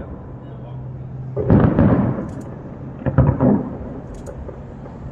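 Aerial fireworks shells bursting: two clusters of loud booms, the first about a second and a half in and the second about three seconds in, each fading in a rumbling echo.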